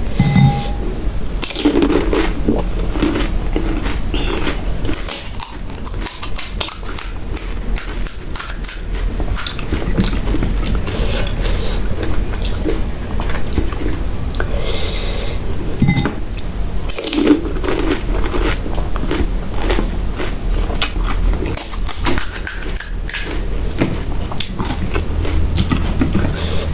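Close-up eating sounds of pani puri: crisp puri shells crunching between the teeth, then repeated chewing, with many short crackling bites throughout.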